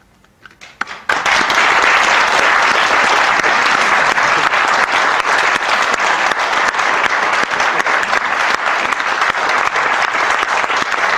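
Audience applause: a few scattered claps, then from about a second in, full, steady clapping from a crowd.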